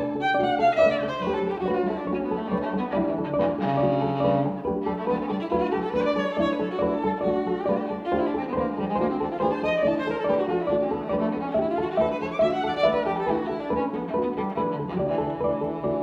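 Viola played with the bow: sliding, gliding notes over held lower notes. About four seconds in comes a brief scratchy, noisy stroke.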